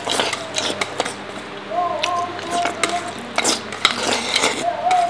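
Chopsticks clicking and scraping against a stainless steel bowl as rice is shoveled into the mouth, with chewing. Short, irregular clicks run throughout, with a thin tone about two seconds in and again near the end.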